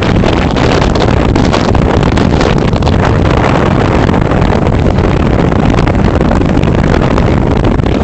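Storm gale buffeting the microphone in a loud, steady rumble, over the wash of rough sea breaking onto shingle and a slipway.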